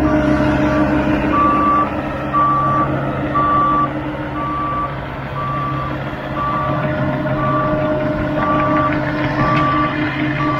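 Loader's diesel engine running steadily while its reverse alarm beeps about once a second, starting about a second in: the machine is backing up.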